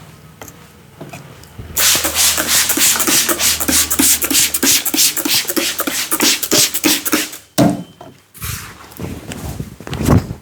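Barber's hands rapidly patting and slapping during an Indian head massage, a fast even rhythm of about four to five strokes a second for several seconds. Then one sharp crack and a few seconds of hands rubbing.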